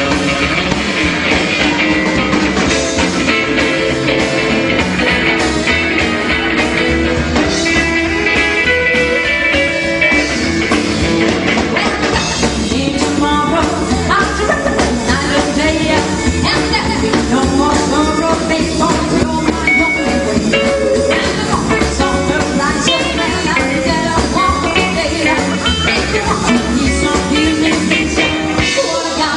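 Rockabilly band playing a rock and roll song live.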